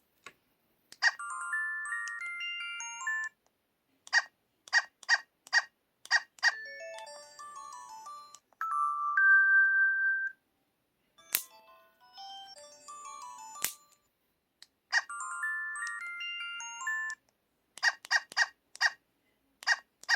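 Built-in sound effects of an LG-KT1000 mobile phone played one after another: short electronic jingles and chimes with brief pauses between them. There is a run of quick bleeps about four seconds in and again near the end, and a held two-note tone around the middle.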